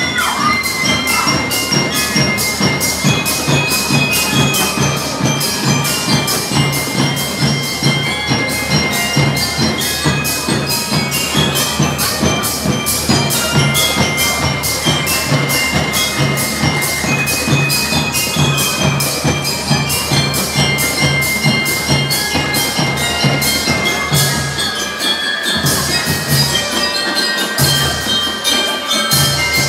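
Drum and lyre corps playing: marching drums keep a steady, even beat under bell lyres carrying the melody. The low drums drop out briefly near the end while the lyres play on.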